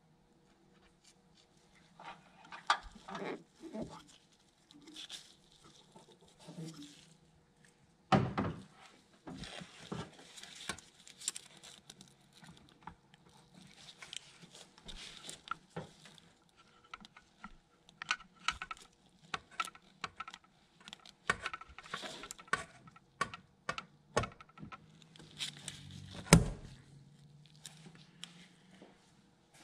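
Handling noise from work on a car's A/C lines: scattered clicks and taps of metal fittings, rustling of plastic wrap, and two louder knocks, about eight seconds in and near the end.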